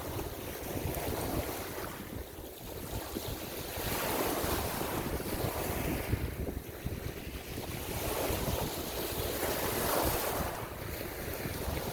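Ocean surf: waves breaking and washing in, swelling roughly every four seconds, with wind buffeting the microphone.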